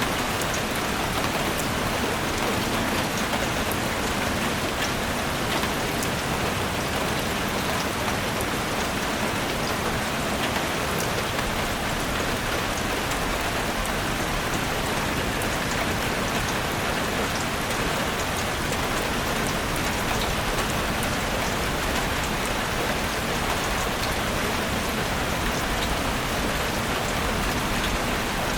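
Steady rain falling in a forest, a continuous even hiss with scattered crisp drop ticks.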